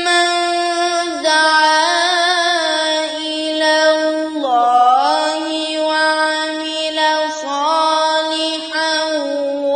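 A solo voice chanting without accompaniment, in long held notes with wavering ornaments and a swooping slide down and back up about halfway through.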